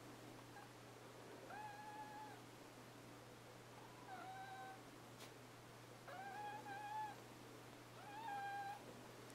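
Newborn Scottish Terrier puppies crying: four thin, high-pitched whines, each under a second long and fairly level in pitch, about two seconds apart.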